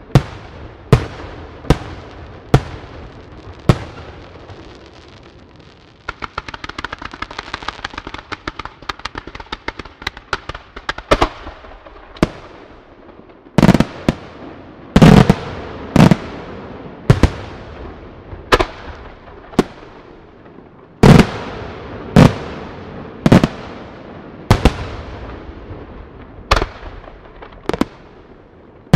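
Aerial firework shells bursting one after another, each a sharp bang, about one a second. From about six to eleven seconds in there is a dense run of rapid crackling pops, and the heaviest bangs come in the second half.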